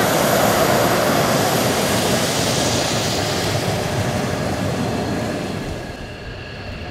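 Mitsubishi F-2 fighter's F110 turbofan engine at taxi power: a loud, steady jet roar with a thin high whine. It grows fainter over the last couple of seconds as the jet taxis away.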